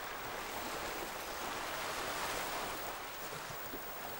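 Steady wash of surf on a beach, an even hiss that swells slightly about two seconds in.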